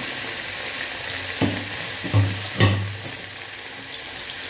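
Whole piranhas sizzling in hot oil with crushed garlic in a pressure cooker, a steady frying hiss. Three dull knocks come in the middle.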